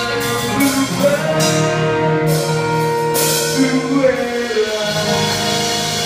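Live rock band playing: electric guitar notes held for a few seconds at a time over a drum kit, with cymbal crashes every second or so.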